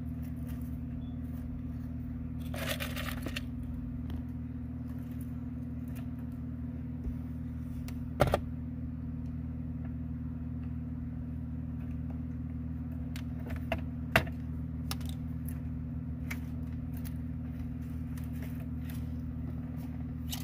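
Wire stripper and fingers working small insulated wires: a short rustle about three seconds in, scattered small clicks and scrapes, and two sharper snaps about eight and fourteen seconds in, over a steady low hum.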